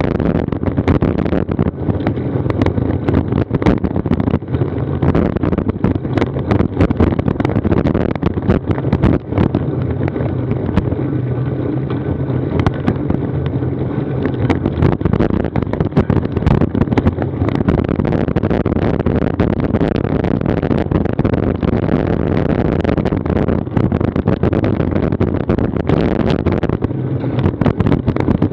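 Wind buffeting the microphone of a Garmin VIRB action camera on a road bike while riding, with road and tyre noise and frequent small clicks and rattles from the bike and mount.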